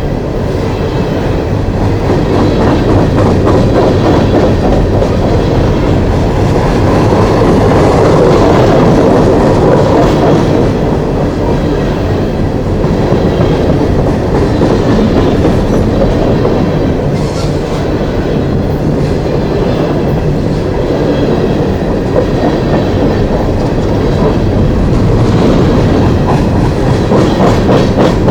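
Cars of a long coal train rolling past on the main line, with a steady clickety-clack of wheels over the rail joints.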